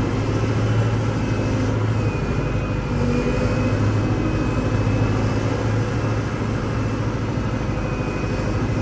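Kubota L6060 tractor's diesel engine running steadily under work, its pitch rising and falling slightly.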